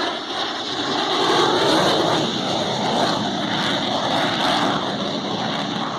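Douglas A-4 Skyhawk jet passing overhead in carrier landing configuration (gear, flaps and tail hook down), its engine giving a steady rushing roar with a sweeping whoosh. The sound peaks about a second and a half in, then eases slightly.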